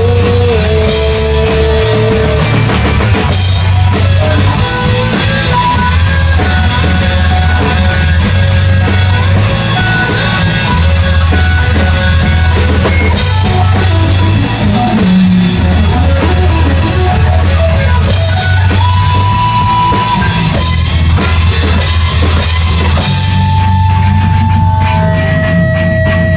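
Instrumental rock music with a heavy drum kit, bass and distorted guitar. There is no singing; near the end it thins to held guitar notes over the drums.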